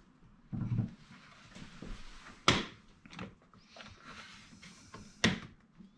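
Blue one-handed bar clamps being worked on a wooden chair frame. A dull knock comes about half a second in, then two sharp clicks about three seconds apart, with small ticks of handling between them.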